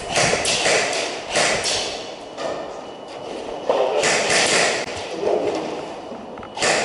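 Footsteps on a concrete floor strewn with plaster and wood debris, at a slow, irregular pace, quieter for a stretch in the middle.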